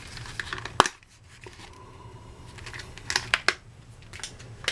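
Lock pick sets and their cases being handled: a sharp click just under a second in, then a quick run of clicks and light rustling a little after three seconds.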